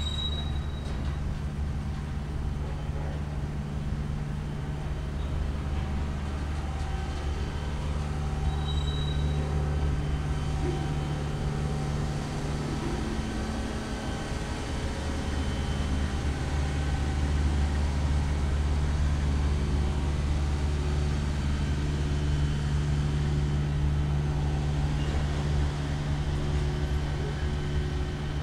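Freight train cars (tank cars, boxcars and gondolas) rolling past on the rails: a steady low rumble of wheels on track, with a brief faint high squeal right at the start.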